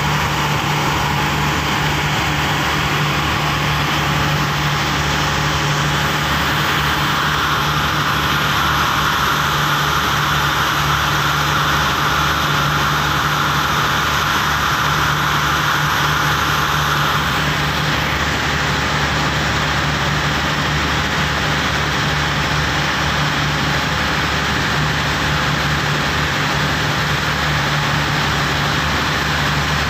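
Motorized outrigger boat (pumpboat) engine running steadily under way, a constant low drone with the rush of water and wake along the hull.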